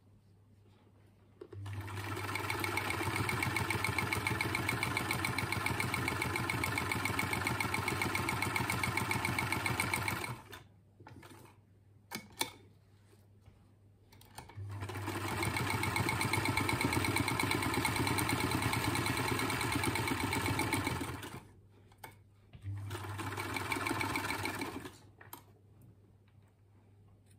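Vintage Singer straight-stitch sewing machine running, stitching in three runs of fast, even rhythm, the longest about nine seconds, each starting up and stopping. Short sharp clicks fall in the pauses between runs.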